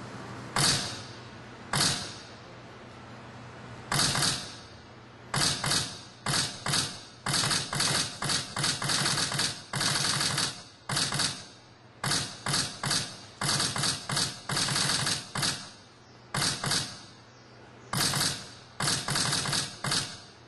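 Sharp clacking, rattling strikes with a mechanical ratchet-like sound, coming in quick irregular runs with short pauses between them, over a faint steady hum.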